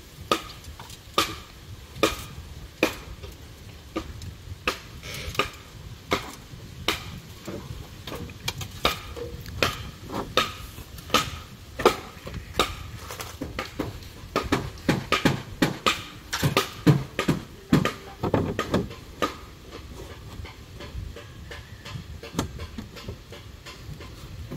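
Hammering on bamboo siding poles: irregular sharp knocks, spaced about a second apart at first, with quicker runs of strikes in the middle.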